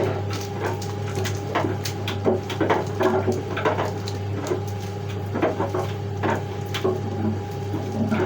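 Irregular clicks, taps and rustles of hands handling small household items and packaging, over a steady low hum.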